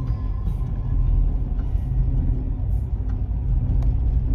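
Steady low rumble of a car being driven, engine and road noise heard inside the cabin.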